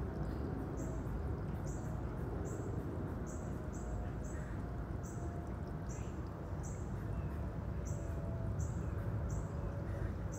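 A short, high chirp repeating a little over once a second, over a steady low rumble.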